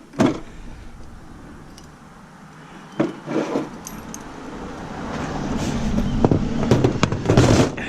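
Knocks and rattles of a metal battery-backup power supply being handled and turned over, with a low rumble building over the last few seconds.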